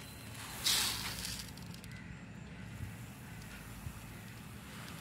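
Fertilizer granules shifting in a metal pan: a short rustling swish about a second in, then faint rustling.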